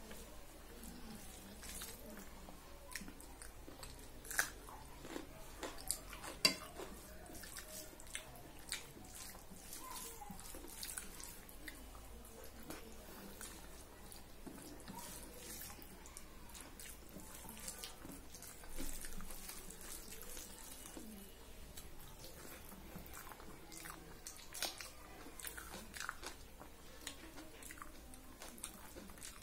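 Hand-eating sounds: fingers squishing rice mixed with dal on a steel plate, and chewing. Scattered small clicks run throughout, with a couple of sharper ones about 4 and 6 seconds in.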